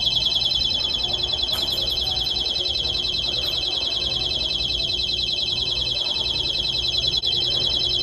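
Retail anti-theft alarm on a store display camera's security stand, set off by handling the camera and sounding a loud, continuous, rapidly warbling high-pitched tone.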